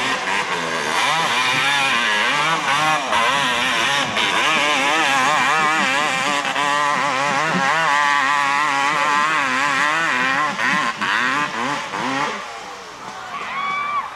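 250cc ATV engine running hard at high revs on a steep dirt climb, its pitch wavering up and down as the throttle works and the wheels spin. About twelve seconds in the engine sound drops away suddenly as the quad flips over.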